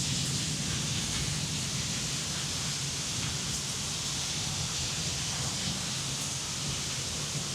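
Steady rain falling with an even hiss, with the low rumble of a thunderclap dying away in the first second or two.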